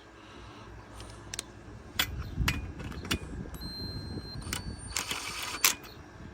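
Handling of tools: a handful of separate sharp metallic clicks, with a short rattle near the end. This is not the impact driver hammering.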